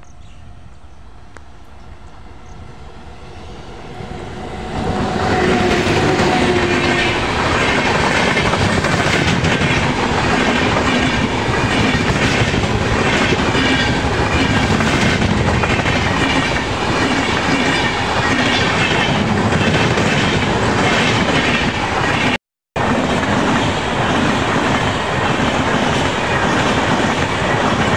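Howrah–Patna Jan Shatabdi Express, an electric-hauled train of LHB coaches, approaching and running past at speed. There is a faint rumble that swells about four seconds in into loud, steady wheel-on-rail and coach noise, with a short steady tone as the front arrives. The sound drops out for a split second about three-quarters of the way through.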